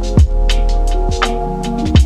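Background music: held pitched notes and a deep bass line, with a heavy kick drum hitting twice.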